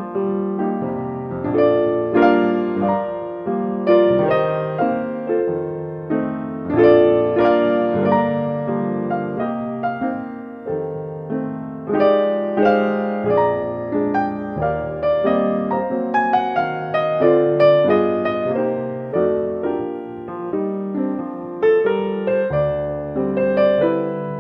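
Background music: a solo piano piece playing a steady stream of notes.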